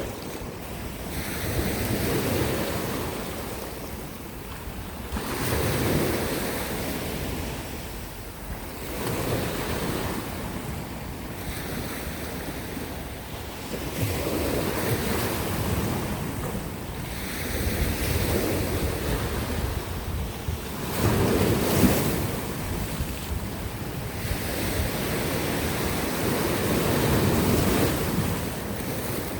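Sea waves breaking against coastal rocks, the surf swelling and washing back every few seconds, with wind buffeting the microphone.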